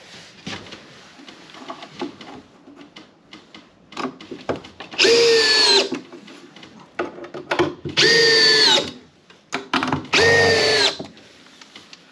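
Makita cordless drill-driver running in three short bursts a couple of seconds apart, its motor whine sinking slightly in pitch at the end of each burst. Small clicks and knocks of handling come between the bursts.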